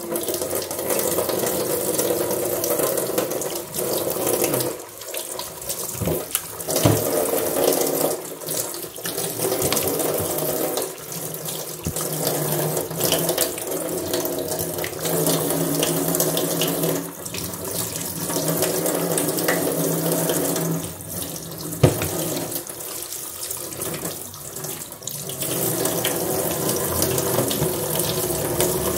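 Kitchen tap running into a stainless steel sink as pork chops are rinsed by hand in a plastic colander, the splashing swelling and dipping as hands and meat move under the stream. One sharp knock a little past two-thirds of the way through.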